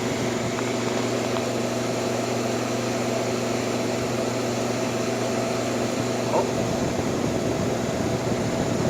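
1958 Carrier 4,500 BTU window air conditioner running steadily in cooling mode. Its compressor and shaded-pole fan motor give a steady hum over the rush of air from the blower.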